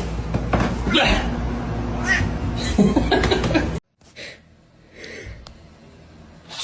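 A cat meowing several times over a steady low hum. The sound cuts off abruptly about four seconds in, and a much quieter stretch follows.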